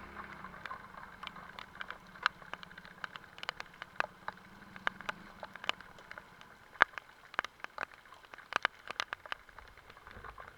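Raindrops striking close to the microphone in irregular sharp ticks over a faint rain hiss, with a steady low hum under the first half that stops about halfway through.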